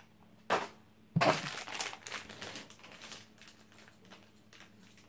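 Clear plastic parts bag crinkling as it is picked up and handled: a sharp rustle about half a second in, then a louder burst of crinkling a second in that trails off over the next couple of seconds.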